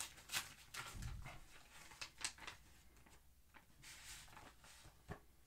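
Faint rustling and crinkling of an envelope being opened by hand, with scattered light ticks and a soft thump about a second in.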